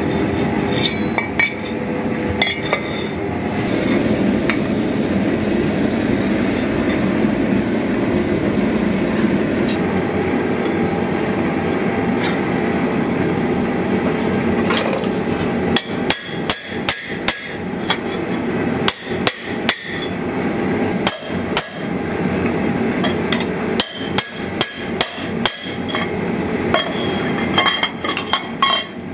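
A small hand hammer striking a metal shield boss against a steel anvil, blow after blow with a metallic clink. The strikes come quickly and run together for the first half, then fall into separate groups of blows with short pauses in between.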